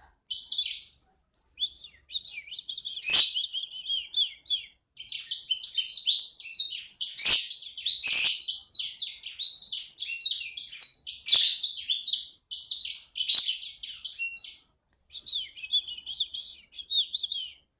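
Pet songbird singing non-stop: long runs of rapid twittering and chattering notes broken by brief pauses, with a few sharp, loud notes standing out.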